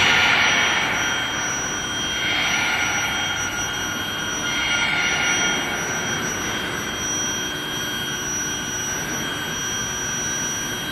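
Induction heating and tempering line for threaded rebar running: steady machine noise with several steady high-pitched whine tones. Three swells of hiss come about two seconds apart in the first five seconds.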